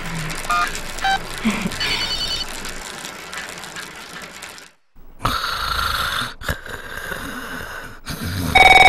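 Mobile phone keypad beeps, a few short tones about half a second apart, as a number is dialled. After a brief silence comes a steady hiss with a faint tone, and near the end a telephone starts ringing loudly.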